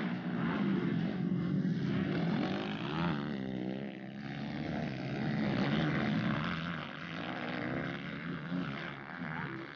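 Engines of 230cc single-cylinder four-stroke motocross bikes racing. The revs rise and fall as the riders throttle over the jumps.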